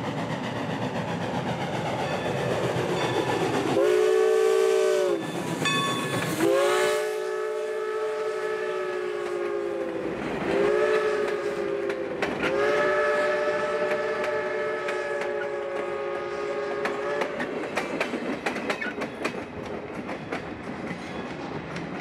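New Hope and Ivyland Railroad steam locomotive No. 40's chime whistle sounding a chord in four blasts, the second and last held longest, over the puffing of the engine as it passes. Near the end the passing cars' wheels click over the rail joints.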